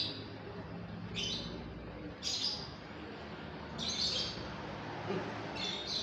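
Juvenile scops owl giving short, high-pitched calls, five in all, one to two seconds apart.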